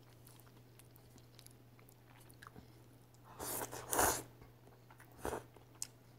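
A person slurping ramen noodles off chopsticks, with faint chewing at first, then two quick loud slurps a little past halfway and a shorter one near the end.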